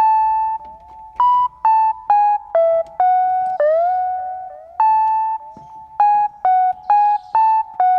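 Background music: a single melody line of sharply struck notes on a synthesizer-like instrument, some held, some short, several sliding up into their pitch.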